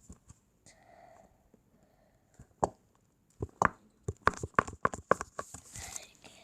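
A glue bottle being squeezed out, sputtering with a quick run of sharp squelchy pops and clicks as air and glue spurt from the nozzle, ending in a short hissing rush of air. The bottle is nearly empty.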